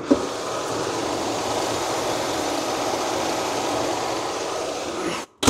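1969 Cadillac de Ville's 472 V8 running steadily as the car drives, engine and road noise blending into one even sound. It cuts off abruptly near the end, followed by a brief loud burst.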